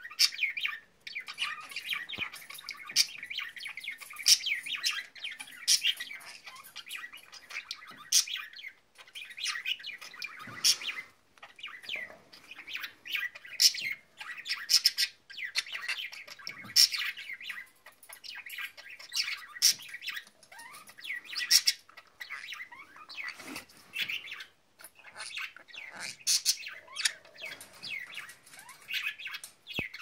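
Green-cheeked conure chirping and squawking: a long run of short, rapid calls with brief pauses between bursts.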